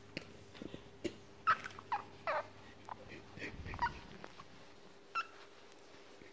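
Fennec fox kit giving short, high squeaks that fall in pitch, about half a dozen at irregular intervals, with a longer pause before the last one.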